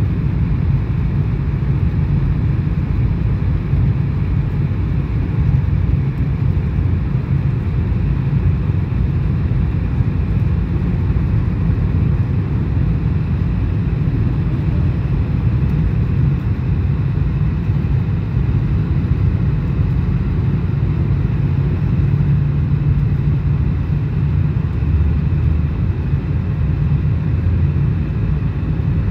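Airliner cabin noise heard from a passenger seat: a steady low rumble of engines and airflow that does not let up, during descent toward the destination.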